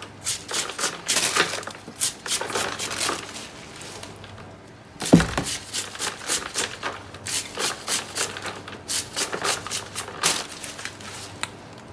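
Kitchen knife slicing through a hand-held bunch of sweet potato leaves and stems in quick crisp cuts, a few a second, pausing briefly near the middle. One sharp knock about five seconds in.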